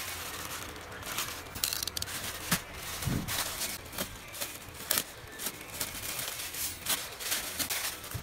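Black plastic mailer bag crinkling and rustling in the hands as it is slit open with a small cutter and its contents pulled out, in irregular sharp crackles.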